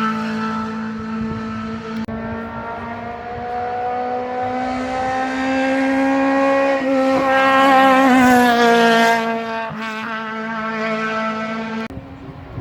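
Historic racing car engine at high revs, accelerating up the hill with its pitch slowly climbing as it approaches. It is loudest about eight seconds in, then drops in pitch as it passes and pulls away. Near the end the sound changes abruptly to a different engine note.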